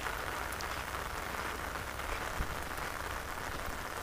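Steady, even patter of water, like light rain falling on shallow water and grass, with faint scattered ticks.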